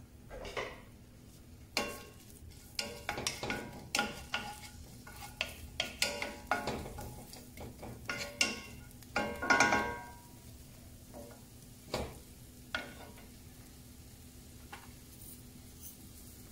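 Wooden spoon stirring and scraping chopped onion, shallots and garlic as they sauté in olive oil in a pan, with a light sizzle. A run of scrapes and knocks against the pan, loudest about ten seconds in, dying away after about thirteen seconds.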